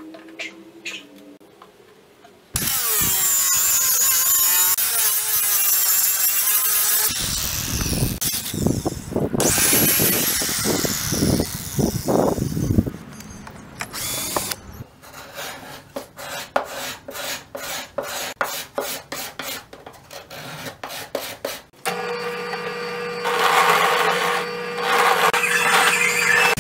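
Power tools working wood in a string of short takes. A few light clacks of thin wooden sticks being handled come first. Then a loud steady-running tool and a cordless drill boring into a wooden instrument top, and near the end a benchtop drill press motor running steadily as it bores.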